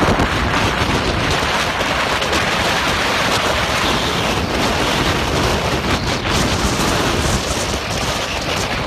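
Strong wind blowing hard across the microphone: a loud, steady rush of noise.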